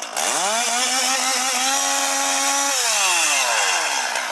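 Two-stroke chainsaw revving up to full throttle, holding there for about two seconds, then dropping back as the throttle is released.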